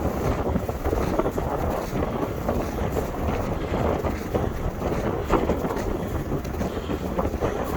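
Strong gusting wind buffeting the microphone: a steady rushing roar that swells and eases, heaviest in the low rumble.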